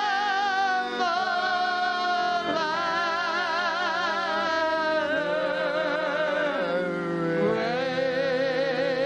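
A slow worship chorus sung in long held notes with wide vibrato, the word "latter" drawn out over several seconds of changing pitch, over sustained accompaniment chords.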